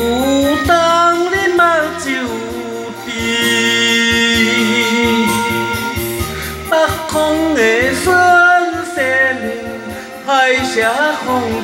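Karaoke backing track of a Taiwanese Hokkien song playing an instrumental interlude: a melody line sliding between notes over a steady beat, with a held chord a few seconds in.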